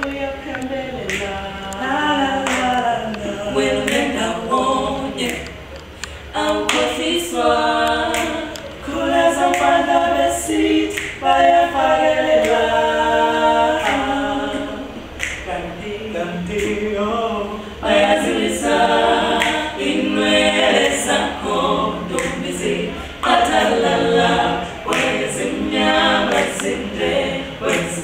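Small vocal group singing a cappella in harmony, several voices together in sung phrases during a rehearsal.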